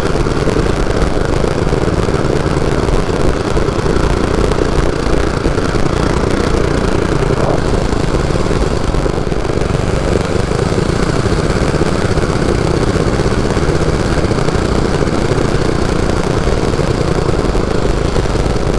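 Predator 212 single-cylinder four-stroke engine of a mini bike running steadily at an even speed.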